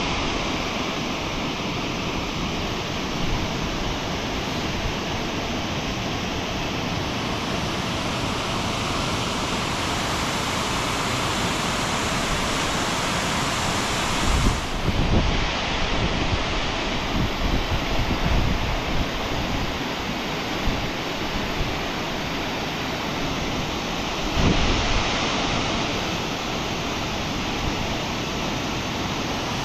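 Steady rush of fast-flowing tributary water, with wind buffeting the microphone now and then, most strongly around the middle and again a few seconds before the end.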